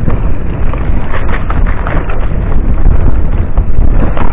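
Wind buffeting the microphone of a camera carried on a moving mountain bike, with a steady low rumble and many small knocks and rattles as the bike rolls over a rough dirt trail.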